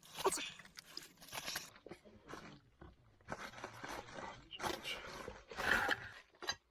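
Rubber bead of a Ninebot Max G30 tubeless tire being pried and pulled off the metal rim with tire levers: irregular scraping and crunching bursts of rubber against metal.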